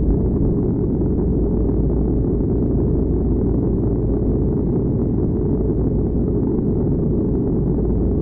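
Explosion rumble sound effect: a steady, deep rumble with no separate blasts.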